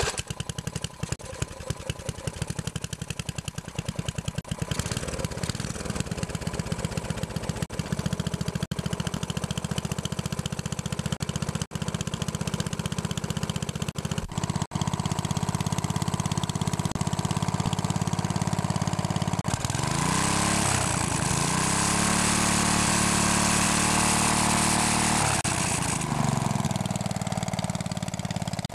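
A freshly rebuilt Tecumseh 8 hp single-cylinder four-stroke engine catches on a recoil pull and runs, firing unevenly at first with a few brief stumbles, then settling. About twenty seconds in it revs up, holds the higher speed for about six seconds, then drops back to idle.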